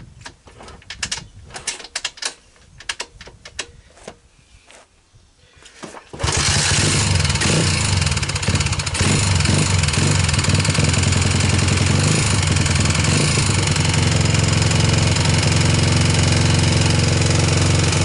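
Cold start of a 1987 Honda TRX250X's single-cylinder four-stroke engine with the choke on. A series of clicks and knocks comes first, then about six seconds in the engine catches on a kick and keeps running steadily.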